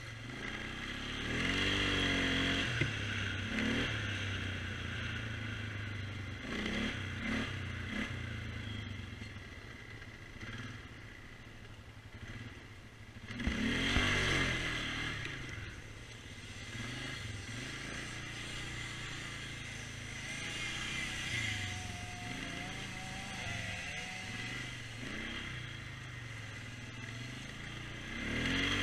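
Polaris Sportsman 500 H.O. ATV's single-cylinder four-stroke engine running under load while riding off-road, revving up and down with the throttle. The hardest revs come a couple of seconds in, about halfway through, and at the very end.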